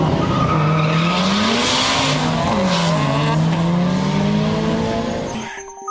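Car engine revving hard at a drag race, its pitch climbing to a peak about two seconds in and dropping back, over a hiss of tyre and exhaust noise. It fades out about five and a half seconds in.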